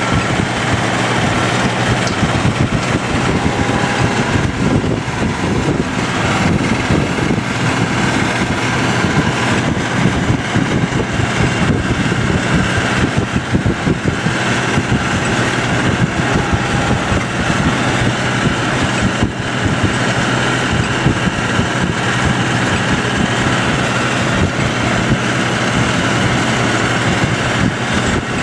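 John Deere 7810 tractor's six-cylinder diesel running steadily under load while pulling a Strautmann Vitesse silage wagon that is picking up grass.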